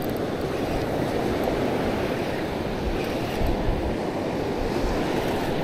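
Steady noise of surf washing onto the beach, mixed with low wind rumble on the microphone.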